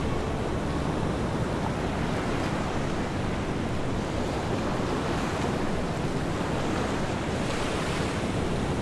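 Steady wash of sea waves on the shore with wind, swelling briefly near the end.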